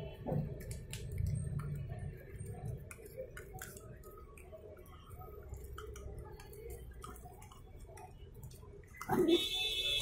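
Stray dogs eating food off the ground, heard as faint scattered clicks and smacks of chewing. About nine seconds in, a louder rubbing burst of phone handling noise.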